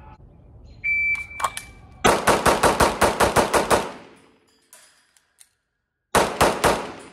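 A shot-timer beep about a second in, then a fast string of about a dozen 9mm pistol shots from a Staccato CS, around six a second. After a pause of about two seconds comes a quick group of about four more shots.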